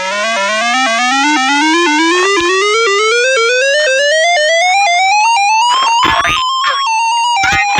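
Synthesized alarm tone of a mock Emergency Alert System alert, climbing steadily in pitch in many small steps for about six seconds. Near the end it breaks into short bursts of noise and brief steady tones that step down in pitch.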